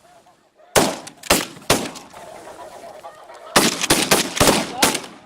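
Volley of shotgun fire at snow geese: three shots about a second in, then a rapid string of about six shots near the end, with a flock of snow geese honking throughout.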